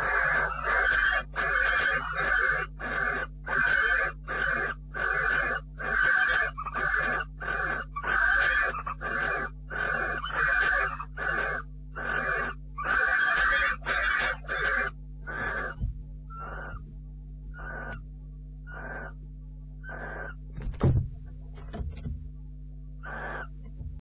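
Barn owls giving harsh, hissing calls in a rapid run of about two a second while mating, then fainter and slower calls about once a second over the last third.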